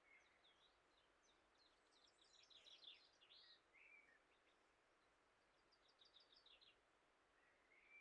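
Faint birdsong: quick chirps, trills and short rising and falling whistles in two bouts, one about a second and a half in and another around six seconds, over near silence.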